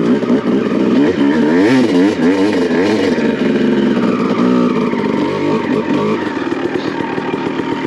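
2001 Honda CR250's single-cylinder two-stroke engine revving under riding load, its pitch rising and falling quickly several times in the first few seconds, then running steadier with a brief dip midway.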